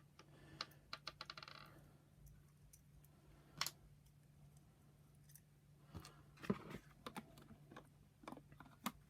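Faint, scattered light clicks and taps of plastic vacuum power-nozzle parts being handled and fitted, with a short rattle early on and a cluster of clicks about six seconds in, over a faint low steady hum.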